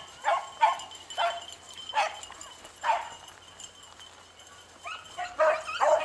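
Beagles baying as they run a rabbit: short barks with a bending pitch, a few spaced out, a lull of about two seconds in the middle, then quicker, overlapping barks near the end.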